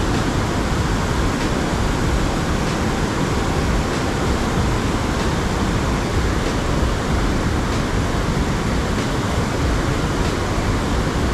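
Steady rush of fast-flowing river water, an even noise from low to high pitch with no change.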